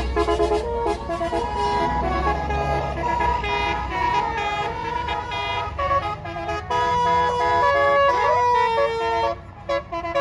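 A bus's 'basuri' musical air horn (telolet) playing a tune of stepped, held notes over the low rumble of the bus engine. About nine seconds in the tune breaks off, and a few short blasts follow.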